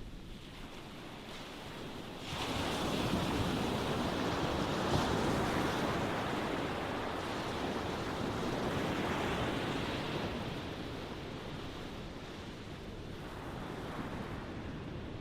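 Ocean waves breaking on a shore: a wave surges in about two seconds in, rushes loudly for several seconds, then washes back and fades, with a smaller swell following near the end.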